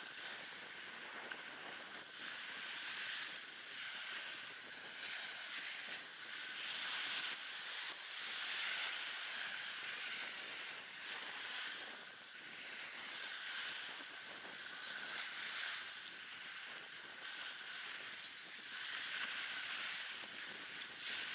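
Small waves breaking and washing up a shingle beach, surging and fading every few seconds, with wind buffeting the microphone. The sound is thin and hissy from noise reduction and a high-pass filter.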